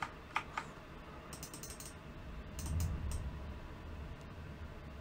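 Computer mouse clicking three times, then faint ticking of the mouse scroll wheel, with a soft low rumble about three seconds in.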